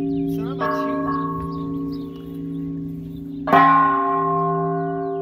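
Large bronze church bells struck by rope-pulled clappers in the bell tower: two lighter strikes about half a second apart near the start, then a much louder strike about three and a half seconds in, each left ringing with a long, steady hum.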